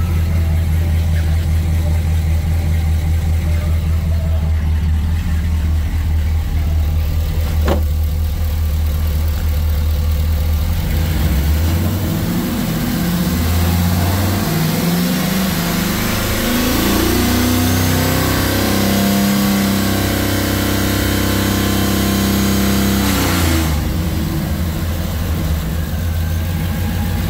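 2009 GM 6.0L gasoline V8 engine running: it idles steadily, then is revved up and down several times from about twelve seconds in. It is held at a raised speed and drops back to idle near the end. A single sharp click sounds about eight seconds in.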